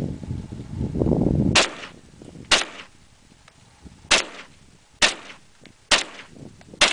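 An SKS semi-automatic rifle (7.62×39mm) firing six single shots, most about a second apart, each with a short echo. A low rumbling noise comes before the first shot.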